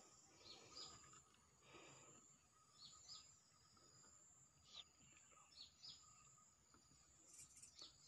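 Near silence outdoors, with faint, scattered short high chirps from small birds over a steady high hiss.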